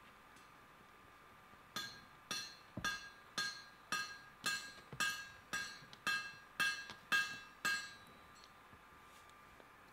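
About a dozen hammer blows, roughly two a second, each ringing, on the end of a hot wrought-iron bar standing in a bolster plate on the anvil. The blows are re-squaring the bar's end. They start nearly two seconds in and stop about eight seconds in.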